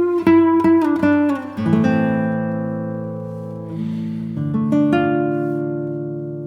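Acoustic guitar music: a run of quick plucked notes, then chords left to ring out and slowly fade.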